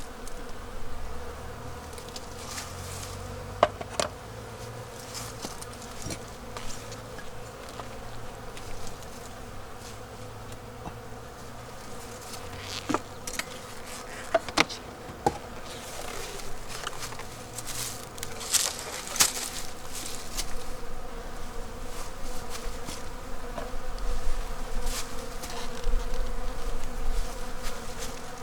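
Honeybees buzzing in a steady hum, with a few sharp clicks scattered through.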